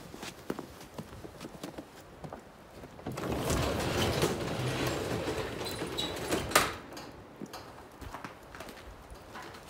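Overhead sectional garage door lifted by hand, rattling and rumbling up its tracks for about three and a half seconds and ending in a loud bang as it hits the top. Footsteps come before and after.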